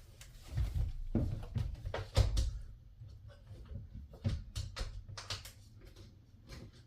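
Handling noises: scattered knocks and clicks, with a few louder thumps in the first half that thin out to lighter taps.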